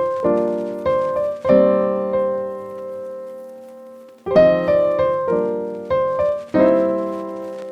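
Background piano music: chords struck and left to ring, one held for a couple of seconds in the middle.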